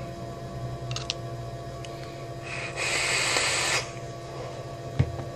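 A long drag on a vape mod firing a 20-gauge coil at high wattage: a steady hiss of air drawn through the atomizer with the coil sizzling, lasting about a second, starting past the middle. Faint clicks come before it, and a short thump near the end.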